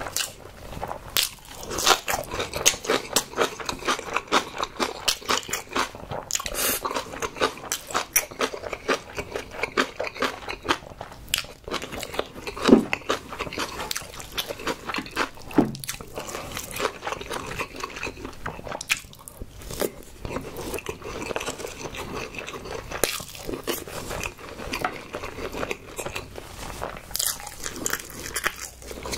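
Close-miked chewing of a mouthful of food: a dense run of quick, sharp mouth clicks, with two short low hums around the middle.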